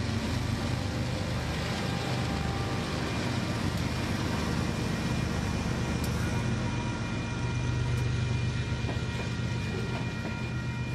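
Motorized toy train running along wooden track: a steady whirring motor hum with the rumble of wheels rolling over the track joints as the cars pass.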